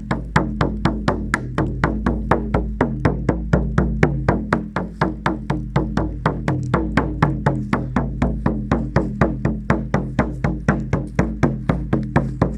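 A drum beaten in a fast, even rhythm, about five strokes a second, with a steady low tone sounding beneath the beats.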